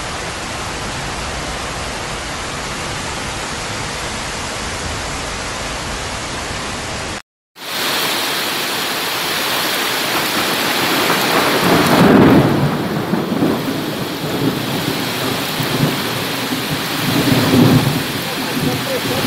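Torrential rain hissing steadily. After a brief dropout about seven seconds in, heavy rain and floodwater rushing along a street, with two louder rumbling swells, one about halfway and one near the end.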